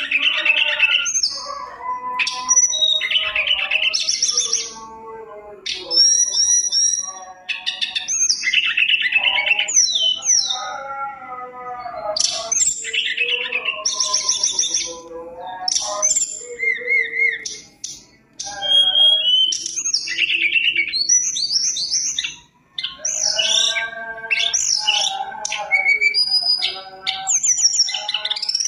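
Caged tledekan gunung (sulingan) songbird singing a long, varied song of clear whistled notes, rapid trills and chattering phrases, broken by two short pauses in the second half.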